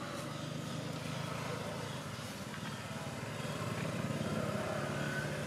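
A motor engine running steadily in the background as a low hum, growing slightly louder in the second half.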